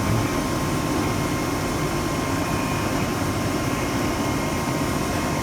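CNC milling machine running steadily as its spindle drives a tap down into a deep drilled hole, a steady machine noise with a thin steady tone through it.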